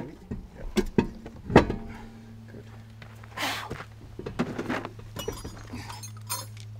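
Hand tools clinking and knocking as they are handled, with the sharpest knock about a second and a half in, and footsteps scuffing on dirt and gravel midway. A steady low hum starts about two seconds in and runs on.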